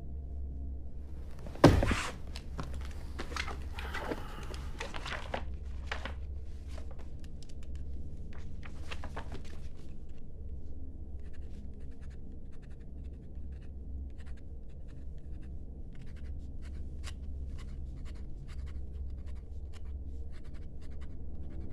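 A loud thud about two seconds in, then a pen scratching across the pages of a thick book in many short strokes, over a steady low room hum.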